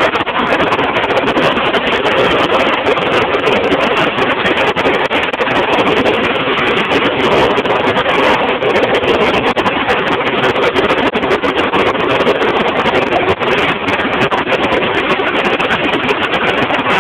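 Harrier jump jet hovering, its Rolls-Royce Pegasus vectored-thrust turbofan giving a loud, steady jet noise that holds without letting up.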